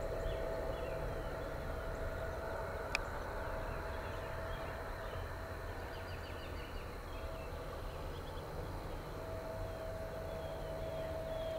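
Faint outdoor ambience: a steady low rumble under a thin steady whine, with faint high chirps of birds or insects scattered through it. A single sharp click about three seconds in.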